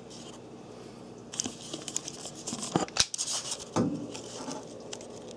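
Light rustling and scattered clicks from handling, with one sharp click about three seconds in.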